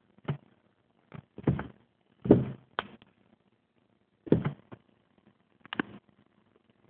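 About seven short, irregular clicks and knocks, spaced roughly half a second to a second and a half apart.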